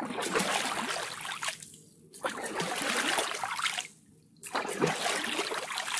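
Recorded water sound effect: water splashing and trickling in three bursts about two seconds apart, with short gaps between them.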